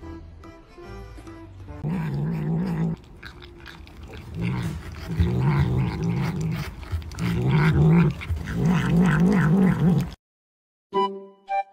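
A tabby cat growling in low, wavering bursts, several in a row, while it hugs a food cup and keeps its face in it: a grumbling growl over food.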